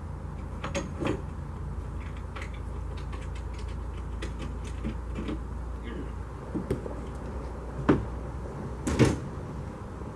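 Scattered metal clunks, knocks and creaks from a folding scissor-style duck blind frame being raised and pinned on an aluminum john boat, the loudest knocks about eight and nine seconds in, over a steady low rumble.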